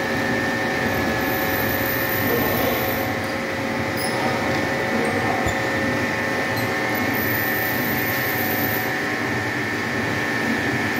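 Vertical milling machine running steadily, its end mill cutting a flat on a hexagon bolt head held in a dividing-head chuck: an even mechanical hum with a few thin, steady whining tones.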